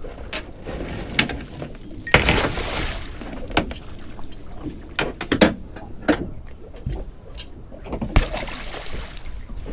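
Anchoring gear going over the side of a small boat: splashes of water with clattering knocks of gear against the boat. Two longer splashes, about two seconds in and again near the end.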